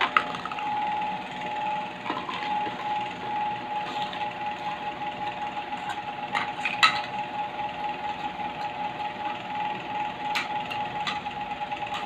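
Plastic toy cookware being handled: a toy spoon and pot and plastic play food give a few light clicks and knocks, the sharpest about seven seconds in. A steady mechanical hum runs underneath.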